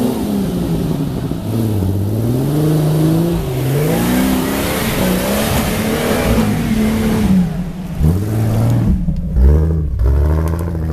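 Off-road 4x4's engine revving hard again and again, its pitch rising and falling as the wheels spin in mud on a steep climb, with a rush of noise around the middle. Near the end the engine is closer and louder with a deep note.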